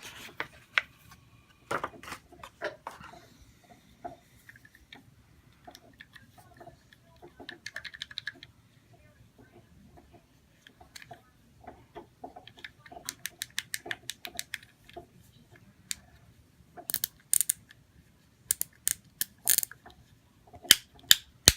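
Plastic packaging being handled and opened, then the small plastic clicks of a knock-off fidget cube's buttons and switches being worked. There is a quick run of clicks about two-thirds of the way in and several loud sharp clicks near the end.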